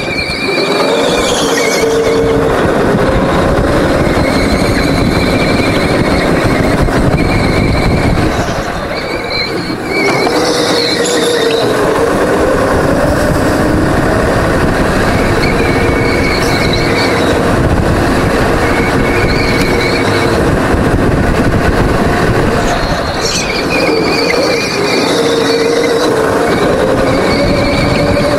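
Go-kart engine running hard through a lap, its pitch rising and falling with the throttle, with tyres squealing again and again as the kart slides through the corners. The engine eases briefly about eight to ten seconds in.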